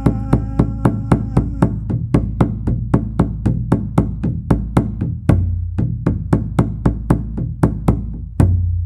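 Congado percussion: a drum beaten in a steady rhythm of sharp strokes, about three to four a second, over a deep resonant boom. The sung line fades out in the first two seconds, and the rhythm ends on a final stroke near the end that rings away.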